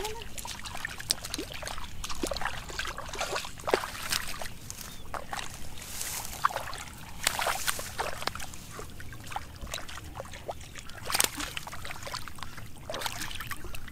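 Shallow muddy water splashing and sloshing in many short, irregular bursts as stranded fish thrash at the surface and bare feet wade through it.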